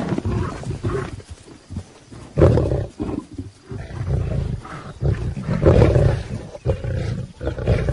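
Lionesses fighting, with loud snarls and roars in several bursts and short gaps between them.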